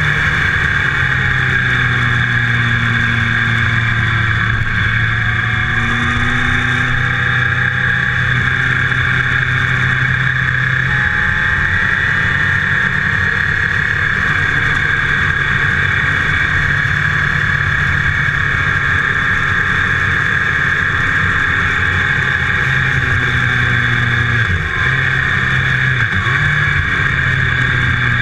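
Motorcycle engine running steadily at road speed under a strong rush of wind, heard from a camera mounted on the bike; the engine note shifts a few times, with a brief dip near the end as the rider eases off.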